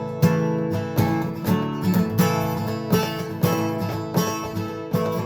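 Acoustic guitar strummed in a steady rhythm, playing the instrumental intro of a song before the singing starts.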